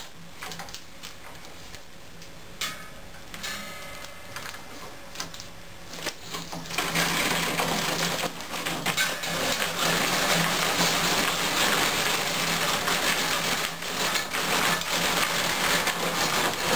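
Bamboo rod binding machine wrapping thread around a glued rod section as the section is drawn through it. It makes a steady mechanical whir over a faint hum, getting louder about seven seconds in.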